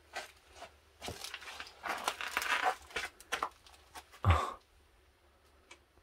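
Rustling and crunching of loose debris and objects being disturbed in a small room, ending in one short thump about four seconds in.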